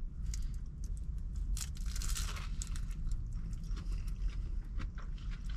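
Close-up chewing of crunchy deep-fried battered whitebait: a quick run of small crunches and crackles, thickest about two seconds in.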